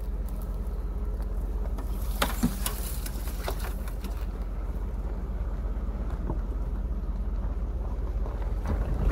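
Vehicle driving down a rough, rutted dirt track: a steady low rumble, with a few sharp knocks and rattles from bumps about two to four seconds in.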